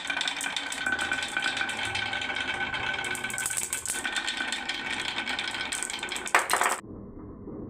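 Marbles clattering continuously down a wooden marble run, a dense rattle of rapid clicks. A louder clatter comes just before the sound cuts off abruptly near the end.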